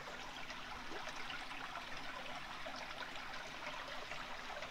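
A stream trickling steadily, running water with no let-up.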